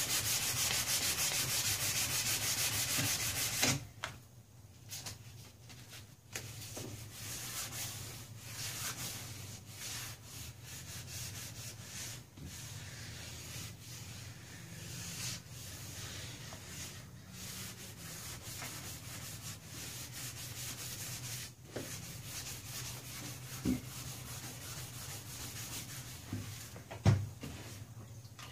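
Hand-sanding the Bondo-filled fiberglass front cowl of a 1986 Club Car DS golf cart with a sanding block. Fast, loud back-and-forth scrubbing for about the first four seconds, then lighter, irregular rubbing strokes with a few small clicks, over a steady low hum.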